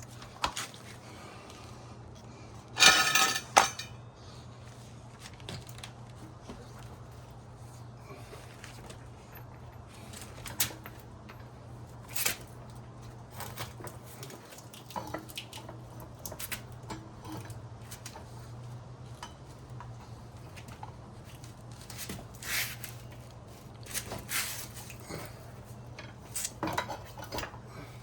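Metal tools and motorcycle wheel parts clinking and clattering as they are handled. One loud ringing clatter about three seconds in, then scattered light clinks over a steady low hum.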